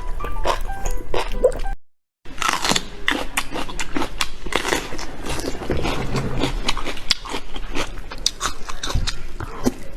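Close-miked chewing of enoki mushrooms: rapid, irregular crunchy, wet bites and mastication. The sound cuts out completely for a moment about two seconds in.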